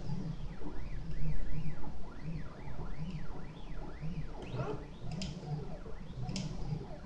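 Prusa i3 RepRap 3D printer's stepper motors whining in quick rising and falling arcs of pitch as the print head moves back and forth, over a low pulsing hum, with a few sharp clicks.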